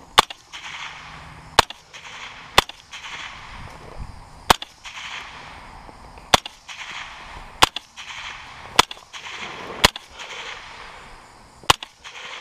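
LWRC semi-automatic rifle firing nine single shots, about one every one to two seconds at uneven spacing, each shot followed by a short echo.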